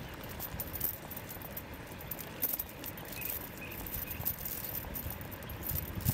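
A metal chain line being gathered and coiled by hand, clinking and rattling in light, irregular clicks over a low rumble.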